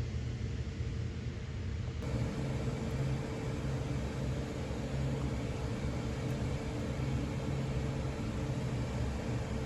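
Steady low mechanical rumble with a faint steady hum; the background hiss brightens slightly about two seconds in.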